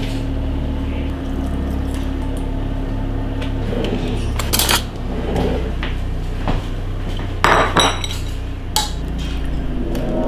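Kitchen clatter of a ceramic bowl and cutlery being handled. There are a few sharp clinks about halfway through and a quick cluster of knocks near the end, over a steady low hum.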